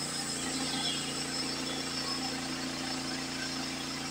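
Portable bandsaw sawmill running steadily under load, its engine holding an even note while the band blade saws through a pine log.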